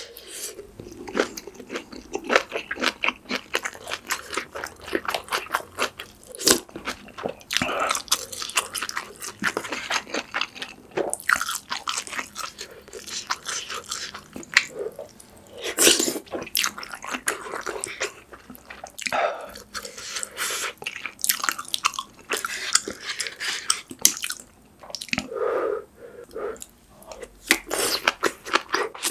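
Close-miked chewing of mouthfuls of pork kimchi stew with ramen noodles and tofu: an irregular run of wet mouth clicks and smacks, with louder bites here and there.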